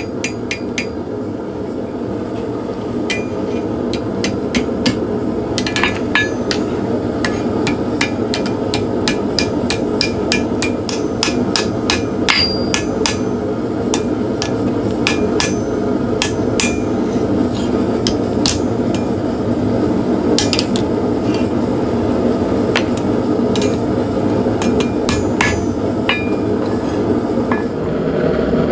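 Hand forging: a hammer striking hot steel on an anvil, a long run of irregular ringing blows, at times several a second. The blows shape a firesteel striker. A steady low roar runs underneath.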